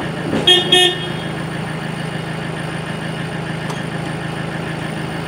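Multicar utility truck's engine idling steadily, with a brief double toot about half a second in.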